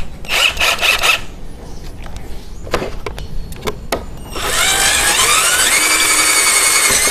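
A few clicks and rattles as the drill is handled and the bit is set in the chuck, then about four seconds in the 12-volt AOTUO cordless drill's motor starts, its whine rising and then holding steady as a twist bit for steel bores into a wooden plank.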